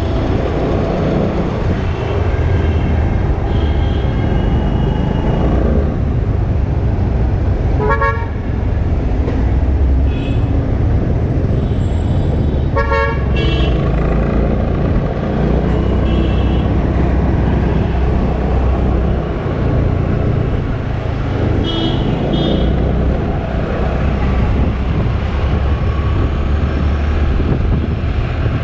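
A scooter riding through city traffic: a steady low rumble of the ride, with car horns honking now and then. There are two short, sharp toots close by, about eight and thirteen seconds in, and fainter horns from further off in between.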